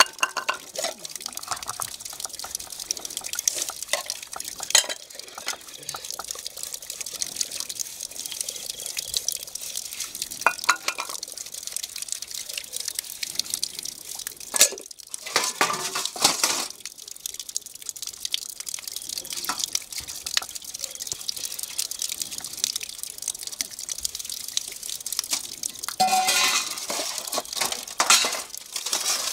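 Stainless-steel plates, bowls and cups clinking and scraping against each other and the concrete as they are washed by hand, with water splashing and dripping. There are louder spells of splashing about halfway through and again near the end.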